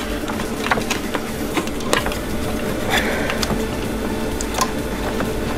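Irregular light clicks and ticks of an exhaust gas temperature sensor cable and plastic wire loom being handled and fed through a snowmobile engine bay, over a steady low background.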